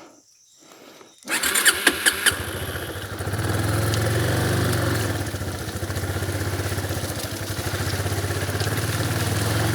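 Motorcycle engine starting about a second in, with a few sharp clicks at the start, then running steadily at idle with an even pulse.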